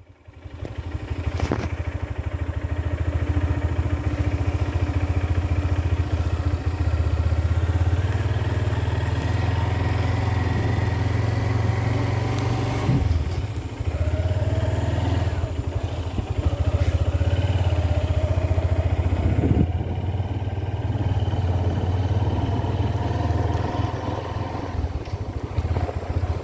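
Motorcycle engine running steadily while riding along, a continuous low drone with some wavering higher tones over it.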